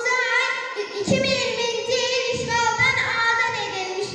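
A young girl singing solo into a microphone, in long held notes.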